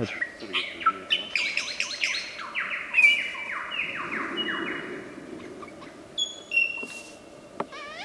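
Male lyrebird singing a rapid medley of varied whistled calls. Partway through comes a fast run of repeated downward-sweeping notes, and near the end a few short steady whistles.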